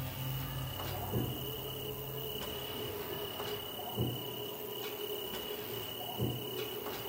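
Night-time ambience of crickets chirping steadily in a high, even tone, with three soft low thuds spaced two to three seconds apart.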